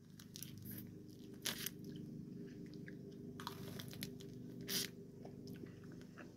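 Faint biting and crunching on a frozen orange Starburst freezer pop: a scatter of small crunches, the clearest about a second and a half in and again toward the end.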